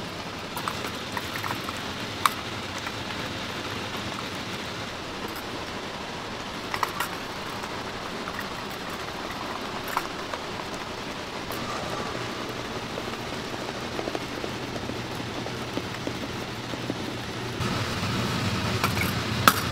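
Steady hiss, like a small gas burner flame, with scattered light clicks and taps of metal dalgona-making tools. Near the end a low rumble swells in and becomes the loudest part.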